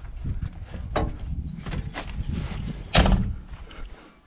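Knocks and clatter of someone climbing out of a Massey Ferguson tractor cab through its door, with a heavy thud about three seconds in.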